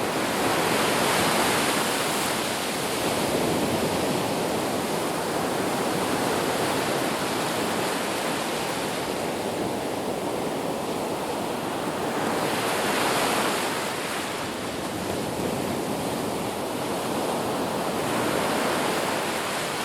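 Ocean surf: waves breaking and washing up a beach in a continuous rush of water, swelling and easing every few seconds, with the strongest surge about thirteen seconds in.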